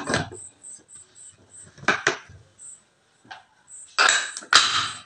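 Metal clicks and a short clatter as the whistle weight is set onto the vent pipe of an aluminium pressure cooker lid, readying the cooker to build pressure. A couple of light clicks come about two seconds in, and the loudest clatter about four to five seconds in.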